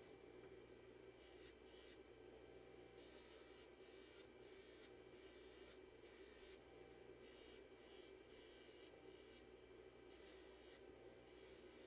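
Faint steady motor hum with a hiss that comes and goes every second or so, from a jeweler's bench machine.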